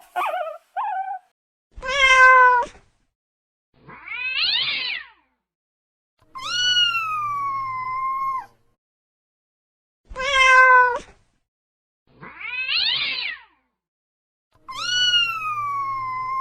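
Domestic cat meowing, six calls in all. There is a short meow, one that rises and falls, and a long meow that slides down in pitch, and then the same three meows again.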